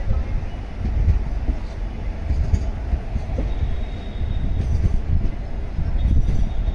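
Indian Railways passenger coaches rolling slowly past on departure: a steady low rumble of wheels on rails. A faint, thin wheel squeal comes and goes twice in the second half.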